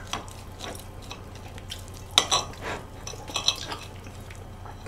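Chopsticks clicking and scraping against plates and a metal tray while picking at food, in scattered light taps; the sharpest click comes about two seconds in, and a few more follow about a second later.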